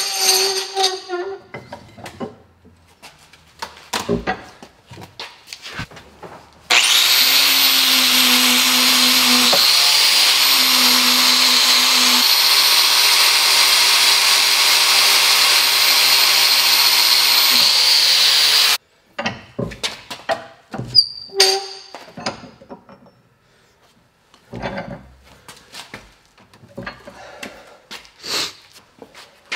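Knocks and clicks as a hatchet is clamped in a steel bench vise. Then, about seven seconds in, an angle grinder with a wire wheel brush starts up and runs steadily for about twelve seconds, scouring paint and rust off the hewing hatchet's head with a high whine, and cuts off sharply. More scattered knocks and clicks follow as the hatchet is handled in the vise.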